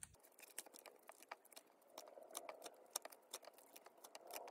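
Faint ticks and crinkles of clear plastic sleeve pages being turned in a postcard binder, irregular and light.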